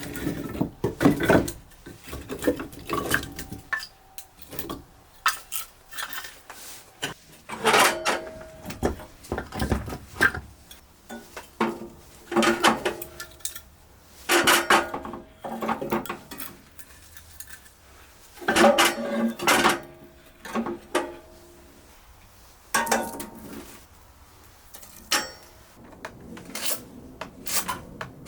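Cookware and cutlery being handled: irregular bursts of sharp clinks and clatters, some with a short metallic ring.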